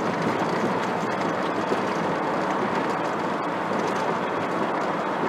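Steady road noise inside the cabin of a moving car.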